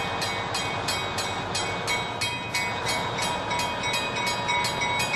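A bell rings steadily at about three strokes a second over the running rumble of a train.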